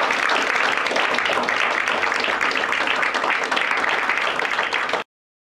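Audience applauding: steady clapping from many hands that cuts off abruptly near the end.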